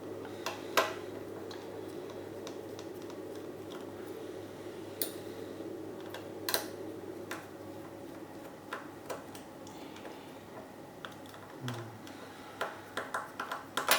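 Light, scattered clicks and ticks of a small precision screwdriver working the tiny screws of a Samsung Galaxy S3's frame, with a quick run of clicks near the end. Under them is a steady low hum.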